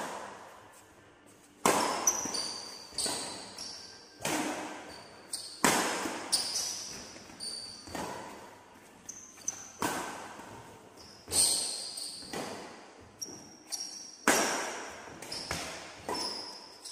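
Badminton rally: a series of sharp racket strikes on the shuttlecock, one every second or so, each echoing in the large hall, with short high shoe squeaks on the court between hits.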